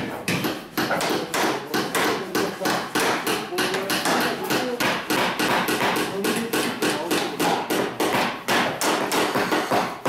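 Carpenters' hammers striking wood: a fast, uneven run of sharp blows, about four or five a second, as a wooden stool is knocked together and a chisel is driven close by.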